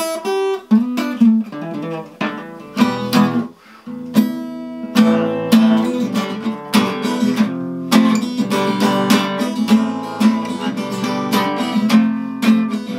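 Guitar played solo: a few separate picked notes and chords at first, then steady continuous strumming from about four seconds in.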